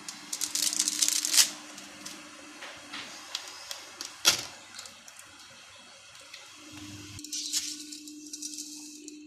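Kitchen handling noises: a cluster of crackles and clicks, then a single sharp click about four seconds in. Near the end, dry spaghetti rustles as it is dropped into a pot of water on the hob, over a faint steady hum.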